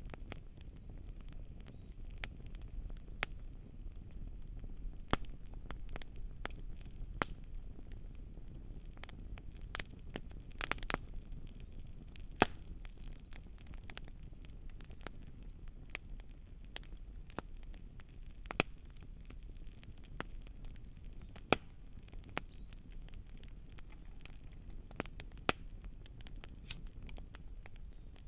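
Wood campfire crackling: irregular sharp pops and snaps, some much louder than others, over a low steady rumble.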